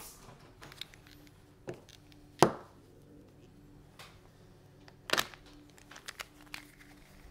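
Handling noise of silver coins in plastic capsules and slabbed silver bars being set down and picked up: a few sharp clacks, the loudest about two and a half seconds in, a quick double clack about five seconds in, then a few lighter ticks.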